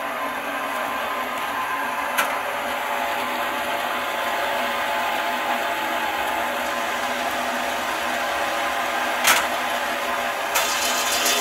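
Homemade belt-driven circular stone-cutting saw running steadily and grinding through a stone slab fed by hand. Two sharp clicks cut through the noise, one about two seconds in and a louder one near the end.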